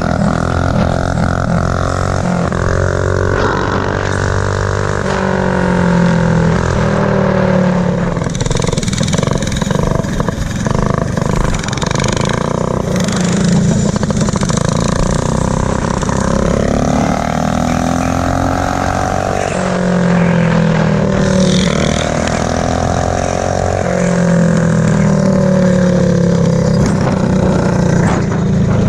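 Minibike engine running hard as the bike is ridden, its pitch climbing and dropping again several times, with wind rushing over the microphone.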